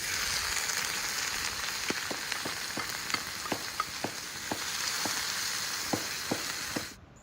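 Food frying in hot oil, a steady sizzle, with a cooking utensil tapping and scraping the pan about two to three times a second as it is stirred. The sizzle cuts off abruptly near the end.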